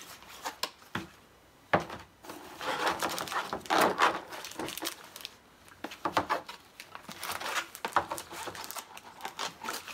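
Plastic clamshell cartridge packs and rolls of vinyl being handled on a table, with rustling and clacking. There is a sharp click about two seconds in, then stretches of rustling.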